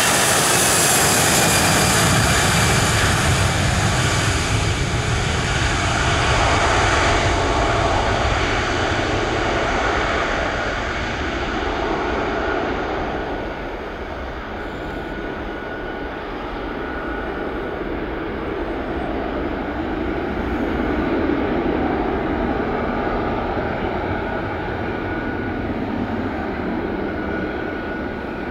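Airliner engines on a wet runway, loudest at first, then the high rushing hiss fades away over about twelve seconds as the aircraft draws off. A steady high engine whine carries on, swelling again briefly past the middle.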